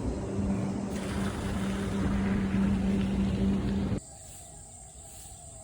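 A steady motor hum, one constant low tone over a rushing noise, cuts off suddenly about four seconds in. A quieter, steady high insect buzz follows.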